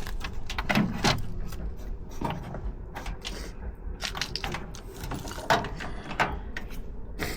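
Irregular clicking and knocking from the parts of an old Hotpoint washing machine being handled and tried again; there is no steady motor run.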